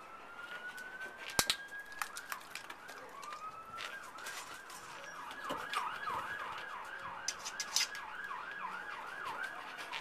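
Emergency vehicle siren: a slow rising wail that changes to a rapid yelp, about two to three sweeps a second, for most of the second half. A few sharp clicks sound over it.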